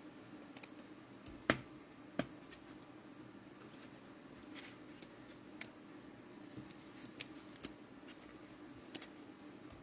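Faint handling of trading cards and cello pack wrappers, with a few sharp clicks. The loudest click comes about one and a half seconds in and another just after two seconds.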